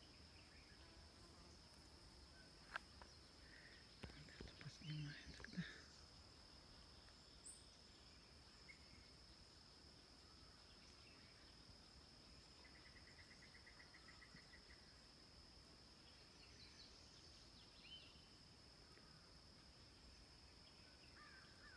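Faint, steady high-pitched drone of insects such as crickets, with a few soft knocks and rustles in the first few seconds and a short rapid trill about halfway through.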